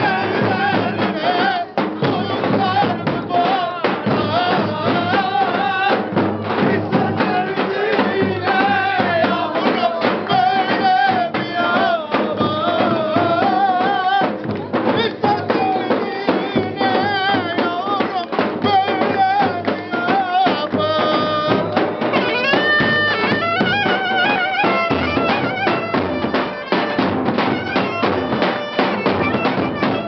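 Traditional folk dance music: a reedy wind instrument plays a wavering, ornamented melody over frequent drum beats.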